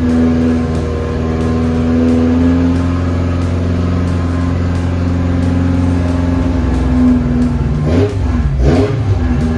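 A car engine running steadily at idle, then revved up and down a few times near the end.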